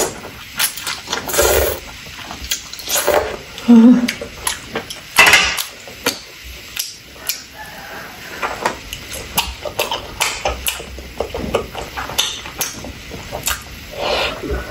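Close-miked eating sounds: noodles slurped in a few loud bursts, then chewing with a steady string of wet mouth clicks and smacks.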